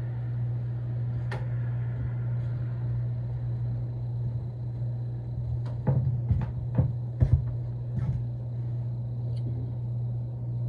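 Metal hydraulic roller lifters clinking against one another and the bowl as they are set into oil, a single click early and then a quick cluster of knocks around the middle, over a steady low hum.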